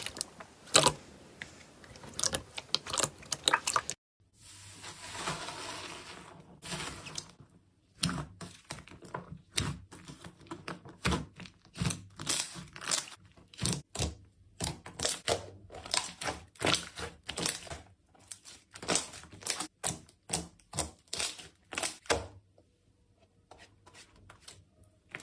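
Slime being pressed and played with by hand, giving a run of irregular crackling pops and clicks, with a smoother squishing hiss about four to seven seconds in.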